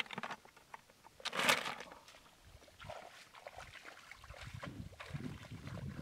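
Shallow water sloshing and splashing in a flooded, muddy rice field, with one short loud burst about a second and a half in. Wading footsteps squelching through the mud and water near the end.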